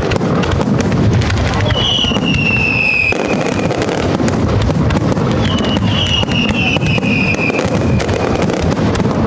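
Spanish display fireworks going off in a dense, continuous barrage of shell bursts and crackling reports. Shrill whistles that fall slightly in pitch cut through about two seconds in and again from about five and a half seconds.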